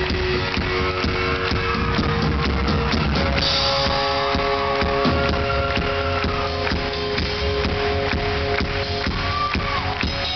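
Live rock band playing: electric guitar holding sustained notes over a steadily beaten drum kit, heard from within the concert crowd.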